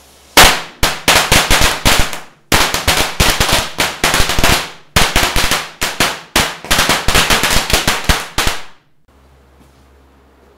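Firecrackers going off in a fast run of sharp bangs, in three bursts of about two, two and a half and four seconds, stopping abruptly near the end.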